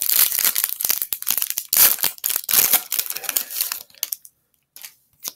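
Shiny foil wrapper of a baseball card pack being torn open and crumpled by hand: a dense crinkling crackle that stops about four seconds in, leaving a few faint ticks.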